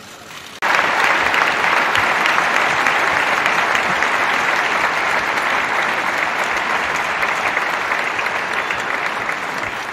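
Large audience applauding, breaking out suddenly about half a second in and going on steadily, easing off slightly toward the end.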